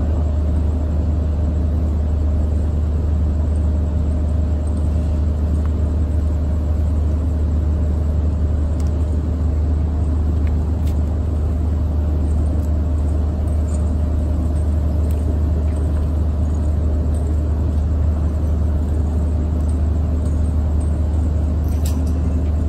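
A steady low rumble that does not change, with a few faint clicks over it.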